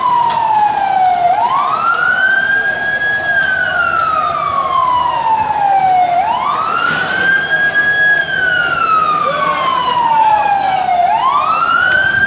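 Emergency vehicle siren wailing in a slow cycle about every five seconds: each wail rises quickly, holds briefly, then falls slowly, with three rises heard.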